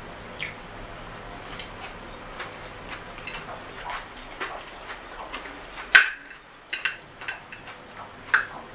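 Close-up eating sounds: a mouth chewing spaghetti, with wet smacks and a metal fork clicking and scraping on a plate. The sounds come as a run of short clicks, the sharpest about six seconds in and another near the end.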